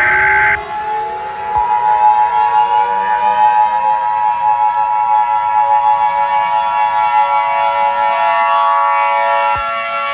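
A burst of EAS digital data tones ends about half a second in. Then an emergency warning siren winds up, its pitch rising over the first few seconds and then holding as a steady chord of several tones, one of which drops out near the end.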